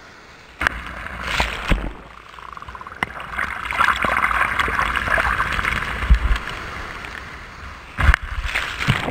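Surf washing up the sand over a camera sitting at the water's edge, with the hiss of foam. Surges start suddenly about half a second in and again near the end.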